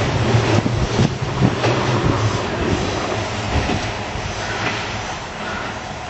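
Izuhakone Railway electric train running away along the track, its wheels clicking over rail joints and its rumble fading steadily as it recedes.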